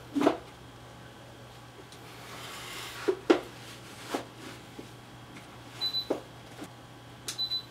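A plastic cosplay helmet being pulled down over a head in a cloth hood: scattered soft knocks and rustling as it is worked into place, with two brief high squeaks in the second half.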